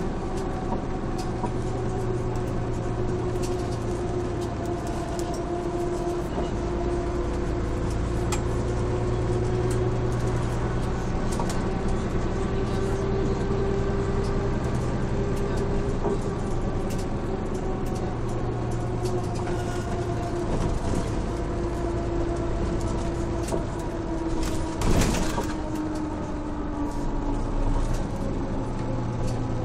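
1996 Jelcz M122MB city bus under way, heard from inside: its Mercedes-Benz OM447hA diesel and ZF 4HP590 automatic gearbox running steadily, with a whining tone that drifts slowly and falls near the end. A single short knock about 25 seconds in.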